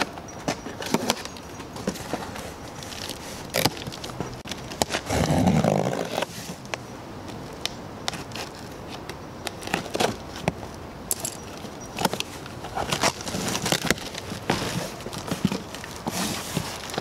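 Knife cutting through packing tape and plastic strapping on a cardboard box: a run of short scrapes, clicks and crackles, then the cardboard flaps being pulled open. One louder noisy sound, about a second long, comes about five seconds in.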